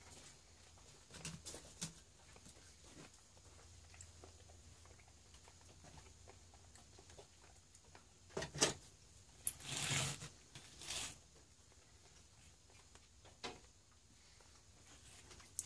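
Faint bench handling sounds: scattered light clicks and a few knocks, with a short scrape or rustle about ten seconds in and another about a second later.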